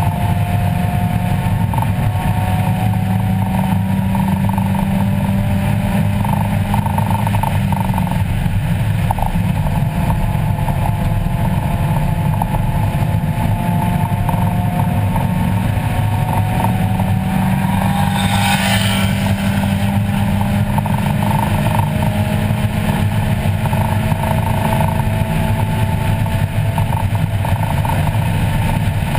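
1994 Mazda Miata's 1.8-litre four-cylinder engine under hard acceleration on track, heard from inside the cabin: its pitch climbs slowly for several seconds and falls back at each gear change or lift, over a steady low drone of road and wind noise. A brief burst of hiss comes about two-thirds of the way through.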